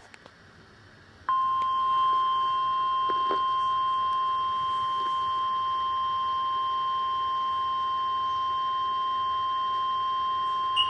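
NOAA Weather Radio 1050 Hz warning alarm tone for an Emergency Alert System tornado watch. It is a single steady, piercing tone that comes on about a second in and holds unchanged, announcing the alert about to be read.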